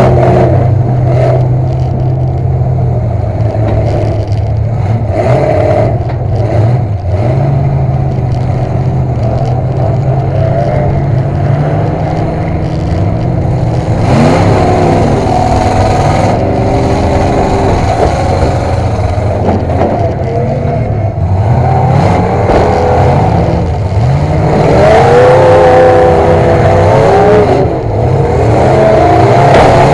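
Demolition derby car's engine running hard and revving up and down again and again, heard from inside the stripped-out cabin. It runs fairly steady for the first half, then revs rise and fall more often from about halfway through.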